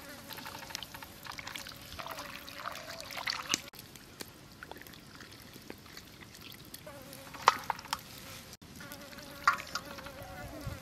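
Raw chicken pieces squelching and water sloshing as they are washed by hand in a steel bowl, with sharp splashes and clinks against the steel, two of them louder near the end. A wavering buzz comes and goes underneath.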